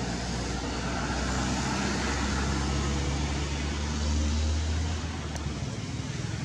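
A motor vehicle's engine hum, low and steady, growing louder and then dropping off sharply about five and a half seconds in.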